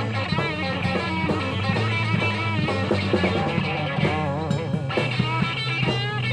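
Electric guitar playing a blues-rock lead with wide, wavering vibrato and string bends over a steady low bass note.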